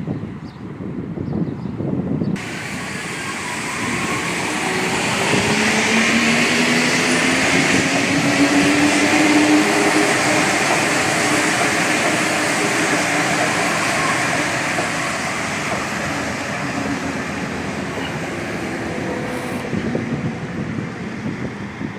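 A rubber-tyred Santiago Metro Line 1 train passes along the open trench. Its rumble builds to a peak and then slowly fades, with a motor whine rising in pitch as it gathers speed.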